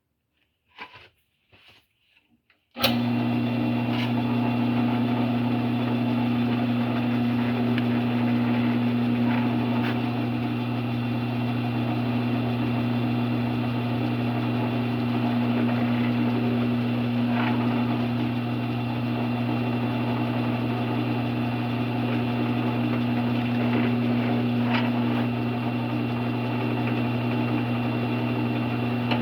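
A few faint taps, then about three seconds in a drill press motor switches on suddenly and runs with a steady hum. A couple of faint ticks come later while it runs.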